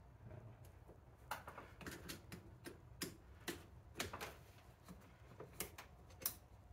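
Flathead screwdriver tightening a worm-drive hose clamp on a rubber intake hose: a series of faint, irregular clicks as the clamp screw turns, the sharpest about six seconds in.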